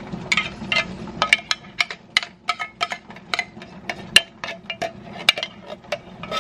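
Metal spoon scraping and clinking against an open tin can while scooping thick condensed soup out of it into a glass bowl: a quick, uneven series of sharp, ringing clinks.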